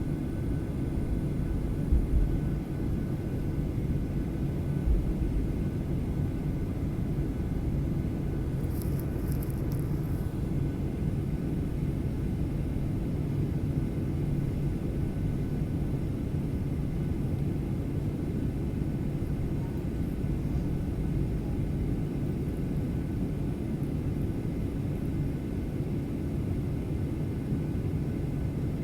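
Jet airliner engines heard inside the cabin: a steady low rumble that holds an even level, not the rising roar of a takeoff run. Two brief low thumps come a few seconds in.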